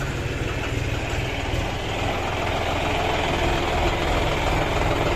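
John Deere tractor's diesel engine running steadily as the tractor pulls a trailer slowly along a lane, growing slightly louder as it comes closer.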